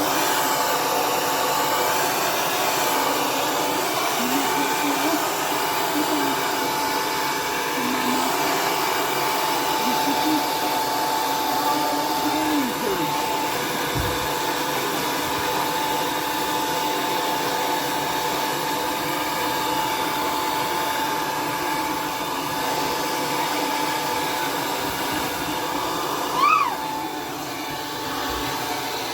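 L'ange hair dryer running steadily: a loud rush of air with a steady whine. About 26 seconds in, a brief rising squeak stands out above it.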